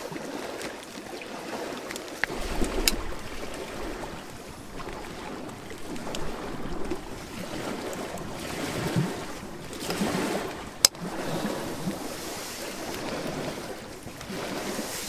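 Small waves lapping at a lakeshore, swelling and easing, with wind, and a few sharp clicks, the loudest about eleven seconds in.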